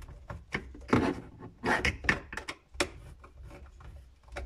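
Hand screwdriver tightening a wood screw into the wooden back wall of a sink cabinet, a run of irregular scraping and clicking strokes.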